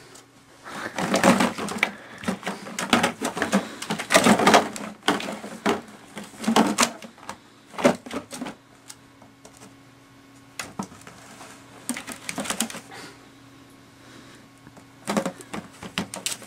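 Empty plastic water bottles crinkling and clattering in bursts as a ferret digs and burrows through a tray full of them, with quieter pauses between the bursts.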